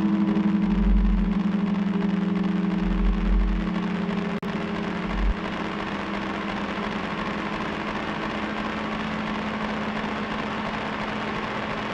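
Modular synthesizer drone: steady held low tones with a deep pulse about every two seconds. About five seconds in the pulses and most of the tones drop out, leaving a steady hiss-like noise over a fainter low drone.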